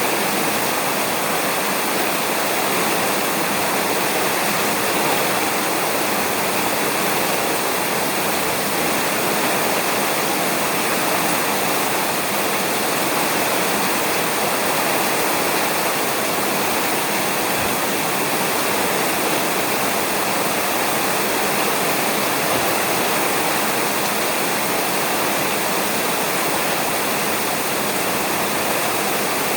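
Steady rain falling on a roof: an even, unbroken hiss of drops with no thunder.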